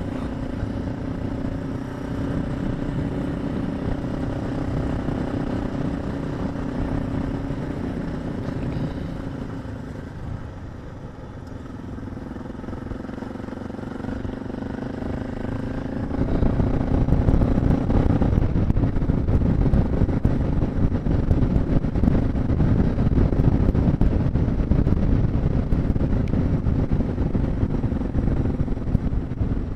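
Suzuki DR650's single-cylinder four-stroke engine running as the bike is ridden off-road, with a steady note. It eases off about ten seconds in, then comes back louder and rougher from about sixteen seconds in.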